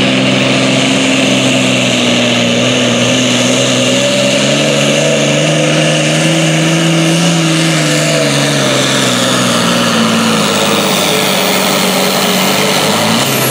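Turbocharged 360-cubic-inch diesel hot stock pulling tractor running flat out under load while pulling a weight sled. The engine's pitch climbs about four seconds in, holds, then sags from about eight seconds and sits lower near the end as the pull winds down.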